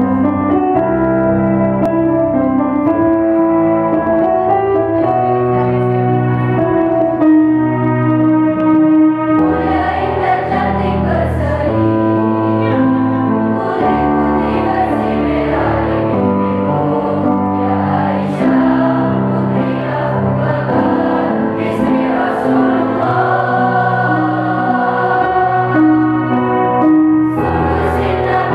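A mixed choir of women's and men's voices singing a part-song in harmony, with electronic keyboard accompaniment; the singing grows fuller about nine seconds in.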